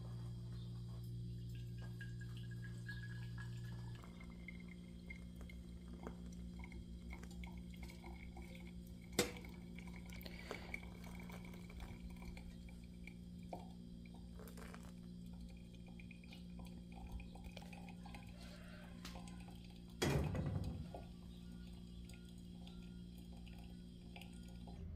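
Hot water poured from a kettle into a coffee filter, with coffee dripping through into the thermos below, over a steady low hum. A sharp knock comes about nine seconds in and a louder clunk about twenty seconds in.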